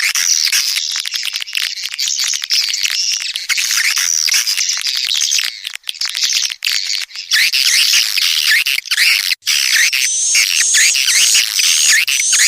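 Edible-nest swiftlet calls, a dense twittering of high chirps, of the kind played as a lure track to draw swiftlets to a nesting house. About seven seconds in the calls settle into a regular run of repeated chirps, roughly two a second.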